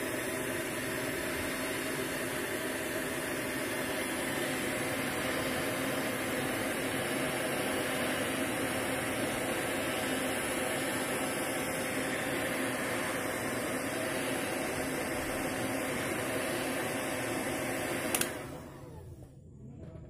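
Hot air gun running steadily at high heat, blowing on a solder-sleeve butt connector to melt the solder and shrink the sleeve. Near the end it is switched off with a click and its fan winds down with a falling whine.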